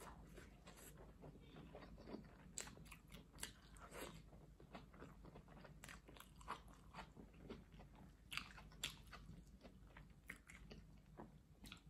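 A person biting and chewing fried plantain and fried egg: faint, irregular crunches and mouth clicks.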